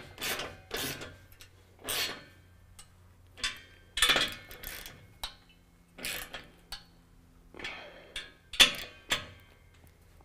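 Ratchet wrench with a 9/16 socket on an extension clicking in short bursts with pauses between, as the nuts of a 3-inch exhaust band clamp are tightened.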